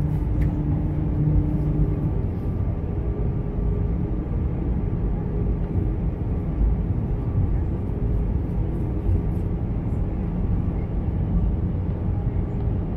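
Cabin noise inside an Airbus A320-214 on approach with flaps extended: a steady rumble of airflow and the CFM56 engines. A low steady hum on top of it stops about two seconds in.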